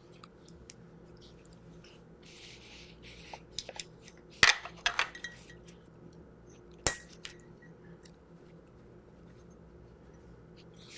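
Small steel internal parts of a WGP Sight Ranger pump paintball marker (bolt, valve and spring) being handled: a light rubbing about two seconds in, then a few small metal clicks, the two sharpest about halfway through and two-thirds of the way through.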